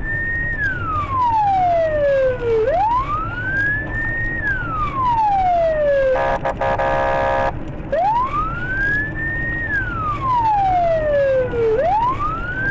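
Police siren wailing: each cycle rises quickly in pitch, then falls slowly, repeating about every four seconds. It is broken once about six seconds in by a short, steady horn-like blast.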